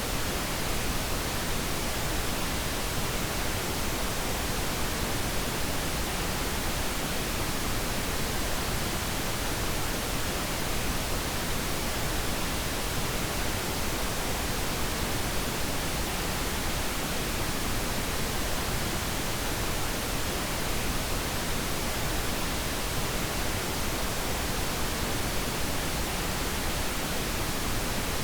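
Steady pink noise, an even, unchanging hiss spread over low and high pitches, played as a sleep aid.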